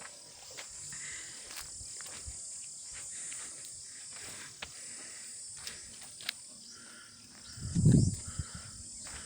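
Steady high-pitched insect chirring, with scattered light clicks. A brief low rumble a little before the end is the loudest sound.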